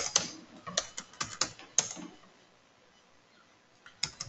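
Computer keyboard being typed on, with quick keystrokes for about two seconds, then a pause, then a few more keystrokes near the end.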